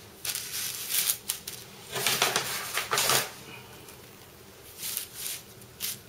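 Wax paper rustling and crinkling in several short bursts as a rolled scallion pancake is laid on it and patted down by hand.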